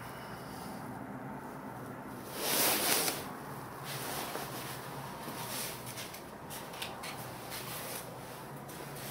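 Handling noise on a handheld camera's microphone over a steady hiss: a loud rubbing scrape about two and a half seconds in, lasting under a second, then a few light clicks and rustles.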